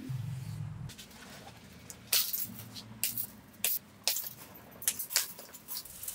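Steel wire being snipped with wire cutters and clinking against its coil on a concrete floor: a string of sharp metallic clicks at uneven spacing, starting about two seconds in, the loudest at the start. A low hum during the first second.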